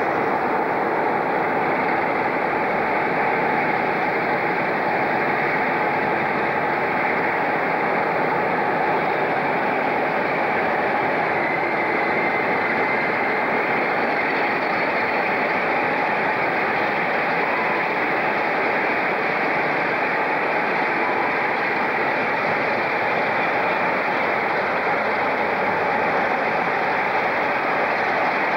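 Diesel locomotive engine running, a steady, heavy noise with no breaks or sudden changes.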